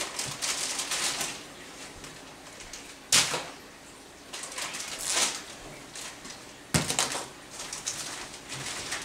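Kitchen handling noises: rustling with two sharp knocks, one about three seconds in and another, followed by a few quick clicks, about seven seconds in, as food items are moved in and out of an open refrigerator.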